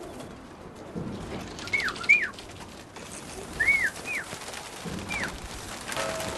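Domestic pigeons cooing in their coop, with five short high calls that rise and fall in pitch.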